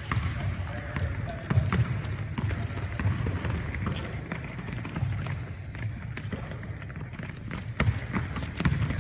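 Basketball bouncing on a hardwood gym floor, with repeated short high squeaks of sneakers and the thuds of running players, echoing in a large gym.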